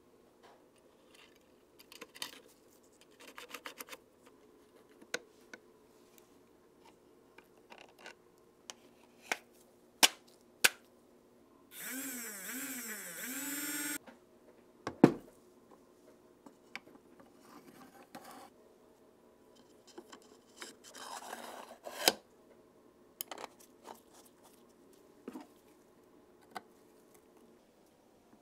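Small clicks, taps and scrapes of hand tools and parts being handled on a homemade wood-and-steel toy Uzi. Near the middle, a loud rasping sound lasts about two seconds, followed by one sharp click.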